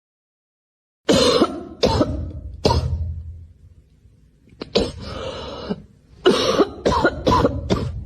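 A person coughing in harsh fits: three hacking coughs, a short pause, then a longer run of coughs coming close together.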